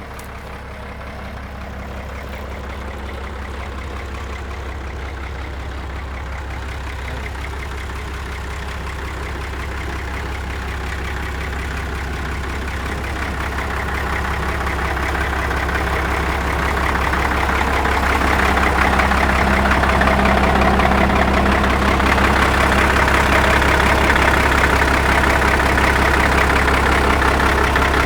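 Caterpillar D6 crawler tractor's diesel engine idling steadily, growing louder over the first twenty seconds and then holding level.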